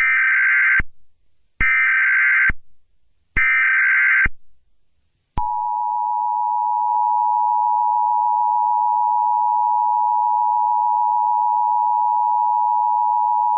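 Emergency Alert System tones: three short bursts of SAME header data tones, each just under a second with a short gap between, then the steady two-tone attention signal held for about eight seconds.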